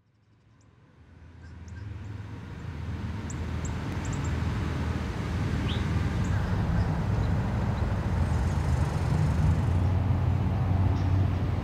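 A steady low engine rumble fades in over the first couple of seconds and runs on evenly, with a few faint, short bird chirps above it.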